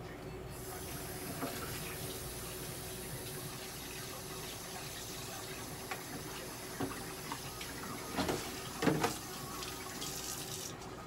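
Steady rushing hiss of running water, switched on about half a second in and cut off near the end, with a few soft knocks late on.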